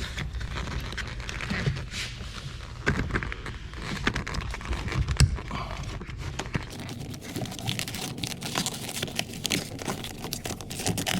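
Plastic handling noise as wiring connectors are plugged back into a replacement power window switch panel: irregular clicks and knocks with rustling, one sharper click about halfway through.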